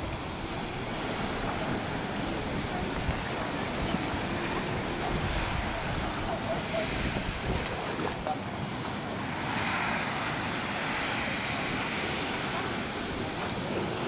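Sea waves washing and breaking steadily, with wind buffeting the microphone.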